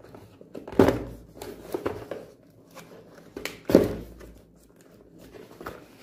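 Clear plastic wrapper being pulled off a cardboard product box, crinkling as it is handled, with two sharper knocks of the box, about a second in and near four seconds in.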